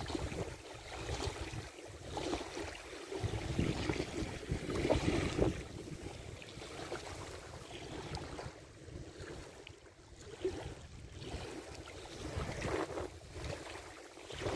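Strong wind gusting over the microphone, a rumbling buffet that swells and drops every second or two.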